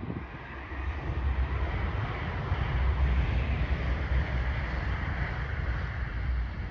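Rumble of an approaching Class 180 diesel multiple unit, growing louder from about a second in, mixed with wind buffeting the microphone.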